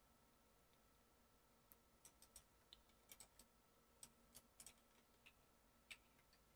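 Faint, irregular clicks of a computer mouse and keyboard keys being pressed, starting nearly two seconds in, over a very quiet background.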